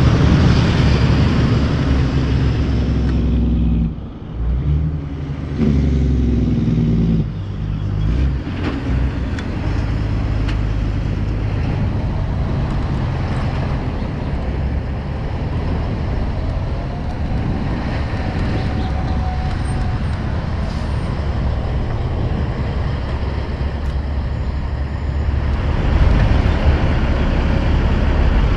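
Heavy diesel logging trucks passing along a busy road, a steady low engine rumble with tyre and traffic noise. The sound dips briefly about four seconds in, and a pitched engine note comes through soon after.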